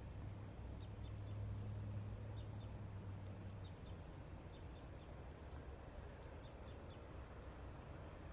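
A small bird chirping, short high notes mostly in quick pairs repeated every second or so, over a steady low hum.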